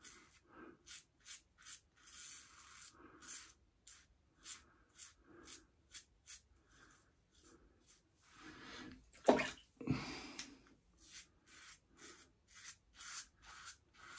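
Safety razor (RazoRock Stiletto) scraping stubble off the face in a quick run of short strokes, each a fraction of a second. Two louder, fuller sounds come around nine and ten seconds in.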